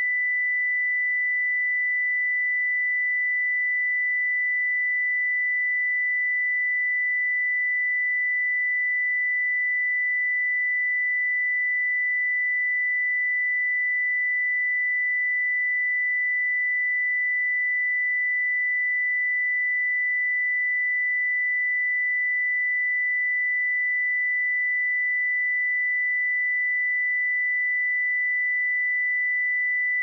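A pure 1987 Hz sine-wave test tone, a single steady high-pitched note held at a constant level without a break.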